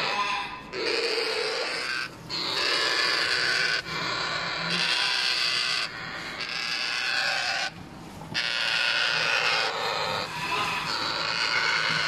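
African grey parrot chicks giving long, harsh, raspy calls one after another, each lasting a second or two with short breaks between them: the food-begging calls of unweaned chicks.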